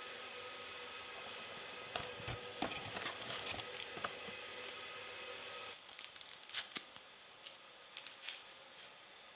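Cardboard tea box being handled: a cluster of crackling clicks for about two seconds over a steady hum. After the hum drops away, a few quieter single clicks follow.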